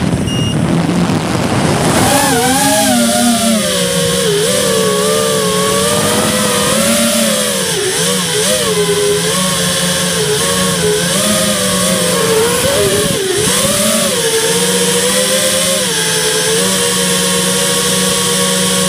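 Close-up motor of a radio-controlled car, heard from the car itself, running and changing pitch as the throttle is worked and steadying near the end. The first couple of seconds are a rough, noisy scramble as the car tumbles over.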